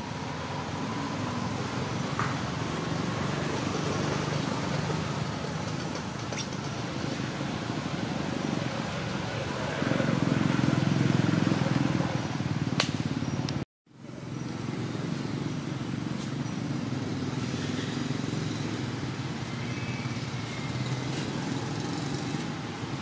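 Steady low rumble of outdoor background noise. It grows louder for a few seconds near the middle and cuts out abruptly for a moment just after.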